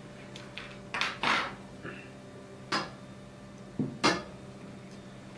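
Several sharp knocks and clatters of a takedown bow's riser with a limb attached being handled, turned around and set down on a wooden tabletop, the loudest about four seconds in.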